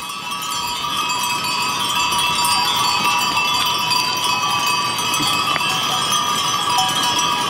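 Many bells on a herd of goats ringing together in a loud, steady jangle as the herd trots along, over the shuffle of many hooves on a stony track.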